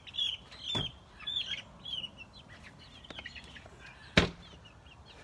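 Month-old chicks peeping, a run of short chirps that thins out partway through, with a sharp knock about four seconds in.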